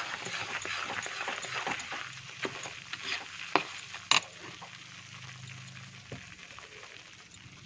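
Gram flour being stirred in hot ghee in a pan: a spoon scraping through it with a light sizzle that fades a little in the second half. Two sharp clinks of the spoon against the pan a little past the middle.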